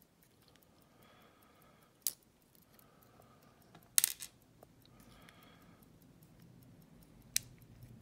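Small metal clicks and taps of a brass lock cylinder's pins and plug handled with steel tweezers while the Faultless cylinder is gutted. There are three sharp clicks, the loudest with a brief ring about four seconds in.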